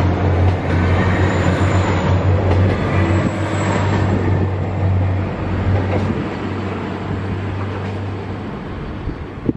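A JR Hokkaido Super Tokachi diesel limited express train, five cars, runs past: a steady low engine drone and rolling wheel noise. The last car passes about four seconds in, and the sound fades steadily as the train draws away.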